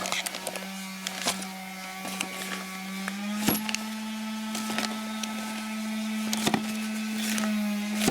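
A steady machine hum that steps up slightly in pitch about three seconds in, with scattered sharp clicks and taps of small metal parts being handled.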